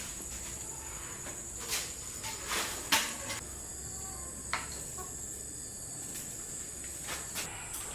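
Insects chirring in a steady high-pitched drone, with a few short knocks and rustles scattered through it.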